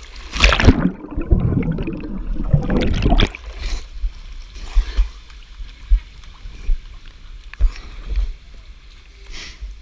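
A person splashing in water: a loud splash about half a second in, then a few seconds of churning and sloshing water, followed by scattered smaller splashes and knocks.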